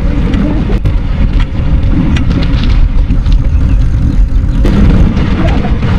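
Loud low rumble of a homemade pedal-powered cycle car ridden fast on an asphalt road, heard through a camera mounted on its front: road and frame rattle with wind buffeting the microphone, and a few sharp clicks.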